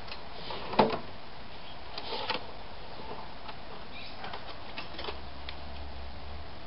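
A few scattered clicks and light knocks of small objects being handled, the loudest about a second in, and a short cluster a second or so later.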